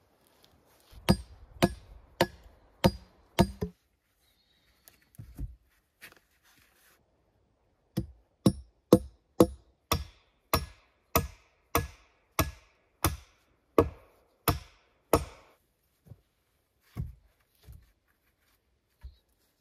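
Repeated sharp strikes of a tool on wood: a quick run of five blows, a pause, then about thirteen blows at nearly two a second, ending in a few scattered knocks.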